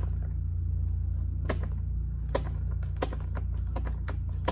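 Irregular plastic clicks and taps, several a second from about a second and a half in, from the hand pump of a Slime tire sealant bottle being worked, which is failing to push sealant into the tire. A steady low hum runs underneath.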